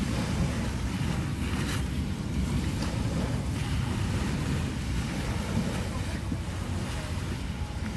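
Wind buffeting the microphone over small waves washing onto a sandy shore.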